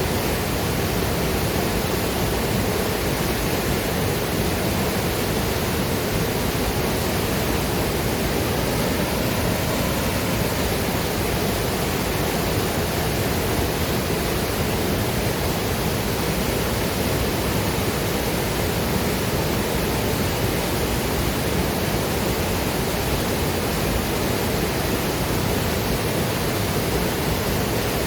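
Waterfall and river water rushing in a steady, dense roar, with no breaks or separate splashes.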